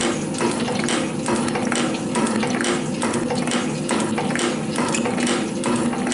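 Metal shaper running a cut in steel with a slotting tool: a steady motor and drive hum, with a regular clack and ratchet click as the ram strokes back and forth and the clapper box lifts and drops on each return.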